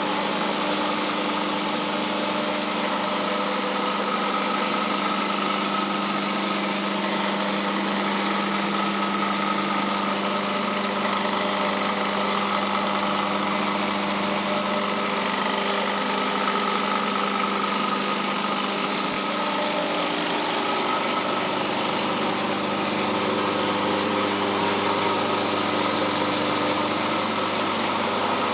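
Knife maker's belt grinder running steadily, its electric motor humming under the even whir of the belt.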